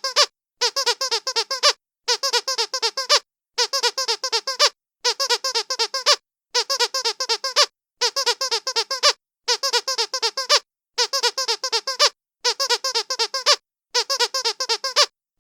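Trixie rubber duck squeaky dog toy squeezed over and over, making high-pitched, quack-like squeaks. They come in quick runs of about seven, with a short pause about every second and a half.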